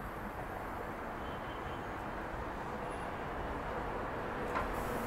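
Steady outdoor background noise: an even low rumble and hiss with no distinct events.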